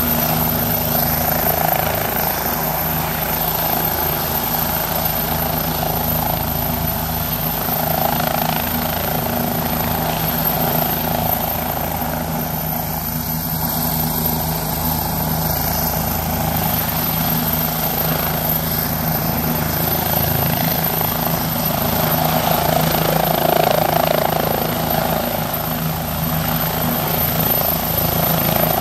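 Bell 429 twin-turbine helicopter hovering low, its rotor and turbines running steadily, the sound swelling and easing slightly as it holds position.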